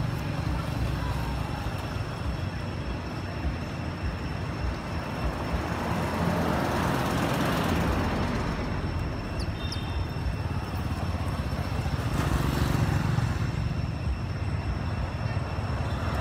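Steady low outdoor rumble that swells twice, with two short high chirps a little under ten seconds in.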